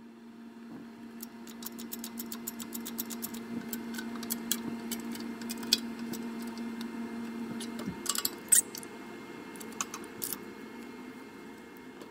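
Press striking a gold blank into a coin die: a steady motor hum that cuts off about eight seconds in, with many sharp clicks and cracks while the die is under load.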